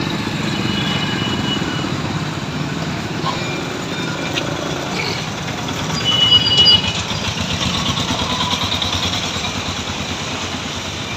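Road traffic: vehicle engines running steadily, briefly louder a little past the middle as a vehicle passes close.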